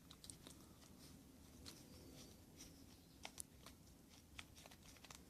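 Near silence with a few faint, sharp clicks of small parts of a Pinnacle Matrix baitcasting reel being handled as the spool is fitted back in.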